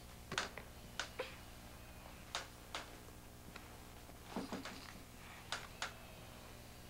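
Quiet room sound on an old camcorder recording: scattered sharp clicks and taps at irregular spacing, with a short cluster of sound about four and a half seconds in, over a steady low hum.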